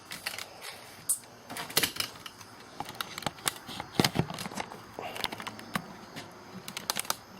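Irregular clicks, taps and knocks of a camera being handled and set onto its stand close to the microphone.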